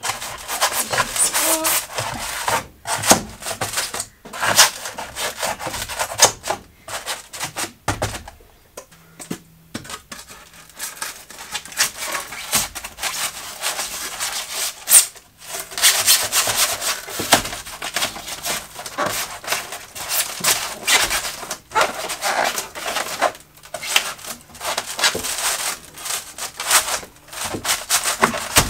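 Foilboard polystyrene foam insulation panel rubbing and scraping against the bus's steel wall frame as it is pushed and pressed into place by hand. The noise comes in irregular bursts and eases off for a few seconds about a third of the way in.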